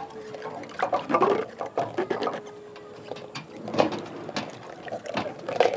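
Water splashing and sloshing in a metal washbasin as clothes are washed by hand, in irregular splashes.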